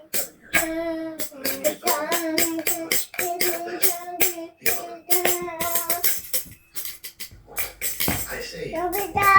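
A child's new toy drum being struck over and over, with sharp jingly hits several times a second, while a woman sings a worship song along with it.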